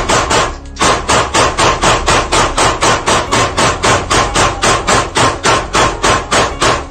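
A rapid, even run of sharp knocks, about six a second, with a short break under a second in: a percussive sound effect.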